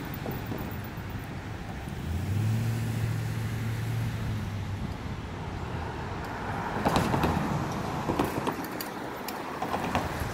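Road traffic passing on a city street, with a steady low engine hum for a few seconds starting about two seconds in. Scattered short clicks and knocks in the last few seconds.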